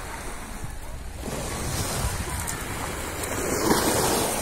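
Sea surf washing over a pebble beach, swelling to its loudest about three and a half seconds in, with wind rumbling on the microphone.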